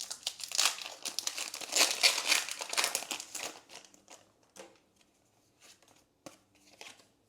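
Foil wrapper of a Pokémon card booster pack crinkling as it is torn open, for about three and a half seconds, then a few faint taps and rustles.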